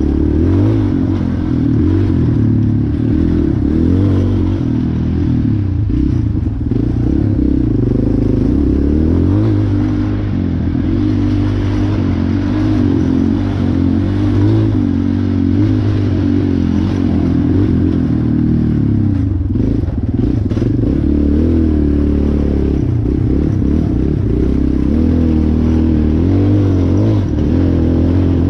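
Off-road race machine's engine being ridden hard, its revs climbing and dropping over and over through throttle and gear changes. A few knocks around two-thirds of the way in.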